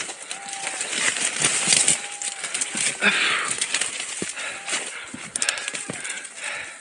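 Dry Mediterranean scrub rustling, scraping and snapping against a beater's body and hands as he pushes through it on rocky ground. Over it, hounds bay faintly in the distance every second or two, running a wild boar.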